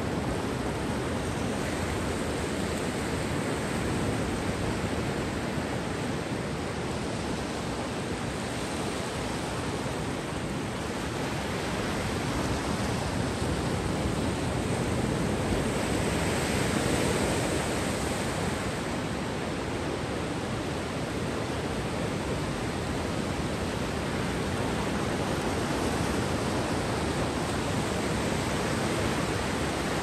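Sea waves washing onto a beach: a steady rush of surf that slowly swells and eases, fullest about halfway through.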